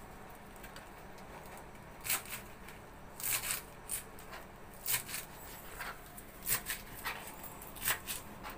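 Kitchen knife cutting through celery leaves onto a plastic cutting board: a dozen or so crisp, irregularly spaced cuts, starting about two seconds in.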